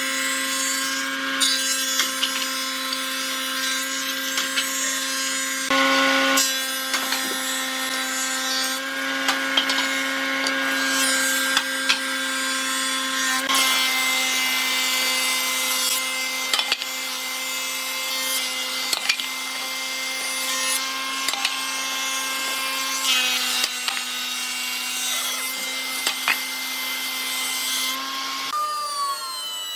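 An electric woodworking power tool runs steadily with a constant hum while it cuts wood, with a rasping hiss of wood being worked and occasional small knocks. The hum shifts slightly a few times as the load changes.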